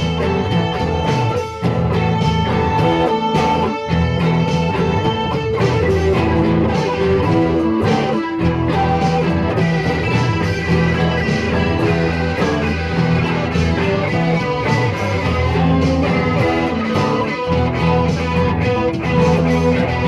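Instrumental stretch of a band song, led by guitar.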